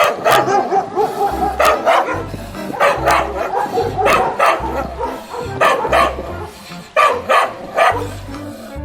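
A dog barking repeatedly in short sharp barks, often in quick pairs, over background music with a steady beat.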